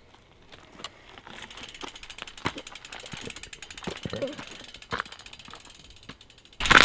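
Mountain bike's rear freehub clicking rapidly as the rider coasts. Near the end a sudden loud rushing noise starts.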